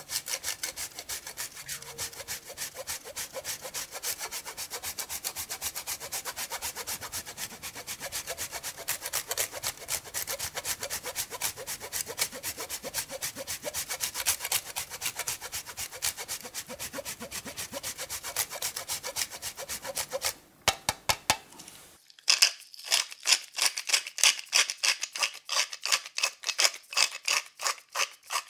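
A block of hard cheese is grated on a fine stainless-steel rasp grater in a steady rhythm of rapid scraping strokes. The strokes stop about twenty seconds in. After a short pause, a pepper mill grinds black pepper in a run of separate crunchy clicks.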